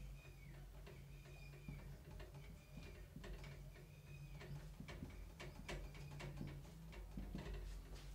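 Marker writing on a whiteboard: faint squeaks and ticks of the tip moving across the board, over a low steady hum.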